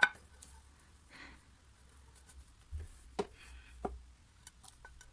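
A few light clicks and knocks of small objects being handled on a work surface, with a soft breath about a second in.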